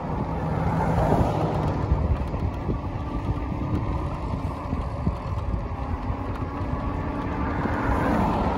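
Steady rush of wind and road noise while riding an electric bike uphill, with a faint hum running under it.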